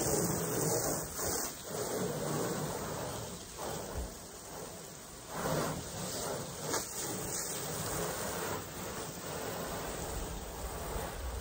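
Garden hose spraying water over an upturned Blue Hole canoe's Royalex hull, a steady hissing spatter that swells and dips as the stream moves along the hull. The hull is being rinsed of sanding dust before painting.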